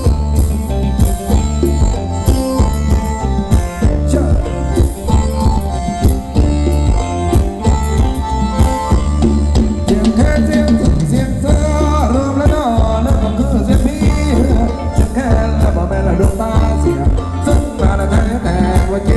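Loud live luk thung dance-band music, with a steady drum-kit beat and heavy bass. Singing comes in about halfway through.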